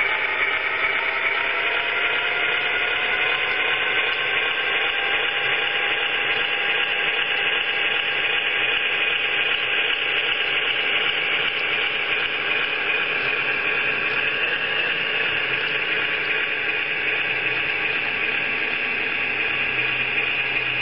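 Model diesel locomotive and freight cars running on the layout's track: a steady whirring rumble of motor and wheels, with a whine that rises slowly in pitch over the first few seconds as the train picks up speed.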